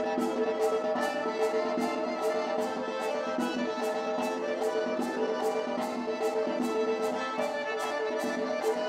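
Circassian folk dance music: a sustained melody over a steady beat of about three strikes a second.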